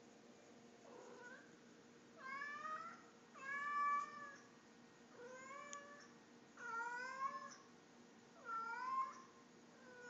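A domestic cat meowing repeatedly: about seven drawn-out meows, roughly one every second and a half, each bending up and then down in pitch.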